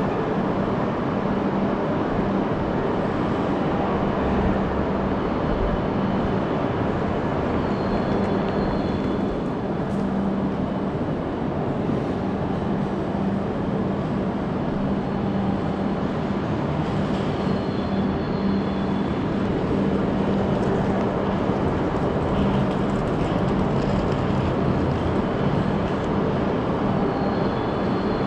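Steady ambient noise of a large station concourse, with a low hum throughout and a faint high tone that comes back about every nine seconds.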